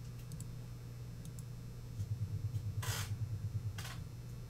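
Quiet room tone with a steady low hum. From about two seconds in, a faint rapid fluttering joins the hum, and two short hissy noises follow about a second apart.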